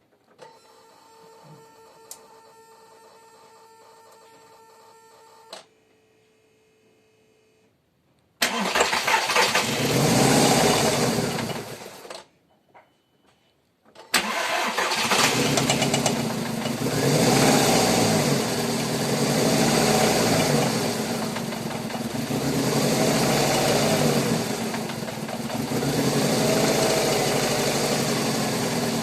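Volkswagen Golf IV 1.6 16V (BCB) petrol four-cylinder engine cranked and started, cutting out after a few seconds, then started again and revved up and down repeatedly, run to check a knock in the engine. A faint steady whine is heard for the first five seconds before the first start.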